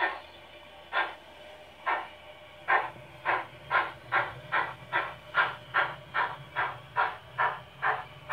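Sound decoder in a Hornby OO gauge Princess Class model locomotive (YouChoos-loaded Zimo MX648 with a sugarcube speaker) playing steam exhaust chuffs as the model pulls away. The beats start about one a second and quicken steadily to about two and a half a second as it gathers speed.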